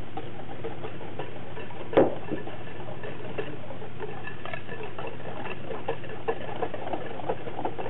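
Liquid batter being stirred in a glass bowl: a mixing utensil ticking and clicking irregularly against the glass, with one louder knock about two seconds in.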